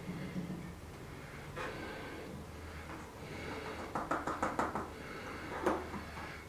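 Plastic bottle being handled and its plastic screw cap twisted on: a quick run of small clicks about four seconds in, then a single sharper click about a second later.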